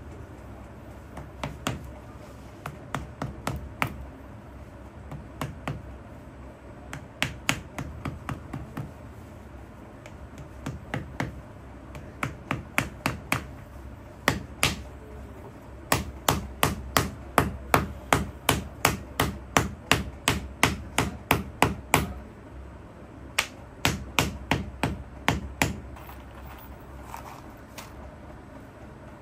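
Shoemaker's hammer striking a stacked leather heel piece on a work slab, in runs of quick sharp taps a few per second with short pauses between them. The strikes come thickest and loudest about halfway through and die away near the end.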